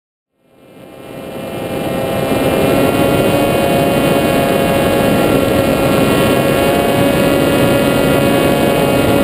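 A model aircraft's motor and propeller running steadily in flight, heard from a camera on board: a steady whine over rushing air, fading in over the first two seconds.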